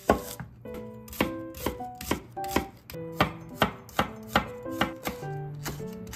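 Chef's knife chopping an onion and then green chili peppers on a wooden cutting board, sharp knocks about twice a second.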